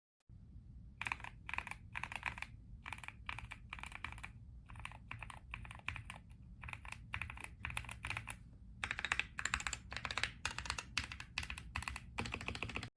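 Typing on a mechanical keyboard fitted with transparent ABS keycaps: quick runs of key clacks with short pauses, growing faster and louder in the last few seconds, then cutting off suddenly.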